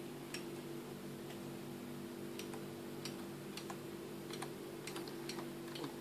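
About a dozen sharp, irregularly spaced clicks of keys pressed on a wireless computer keyboard, over a steady low hum.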